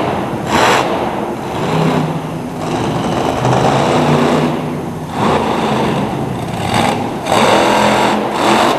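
Monster truck engine revving hard in repeated surges, rising and falling in pitch as the truck drives onto and over a pile of crushed cars, echoing through an indoor arena.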